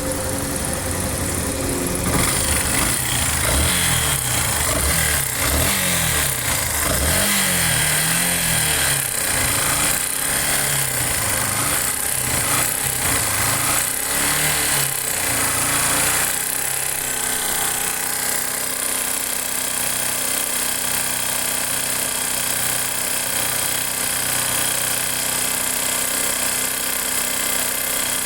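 Yamaha Factor 150 single-cylinder motorcycle engine revved up and down repeatedly, then settling to a steady idle about 16 seconds in. It is running with an engine noise the owner considers abnormal.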